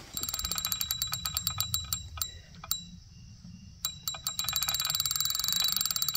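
Bite alarm on a fishing rod ringing in a fast, even run of ticks as a fish runs off with the bait and takes line. The ringing breaks off about two seconds in and starts again near four seconds.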